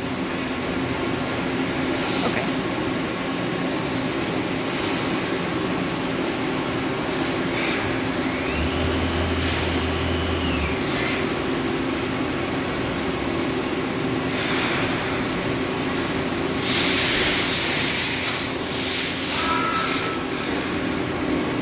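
A Ganesh KSL-7612T CNC turning center running under power while its turret and slides are moved and its chuck spins. Its steady mechanical hum carries a whine that rises, holds and falls about eight to eleven seconds in. Several short rushing sounds break in, the longest about seventeen seconds in.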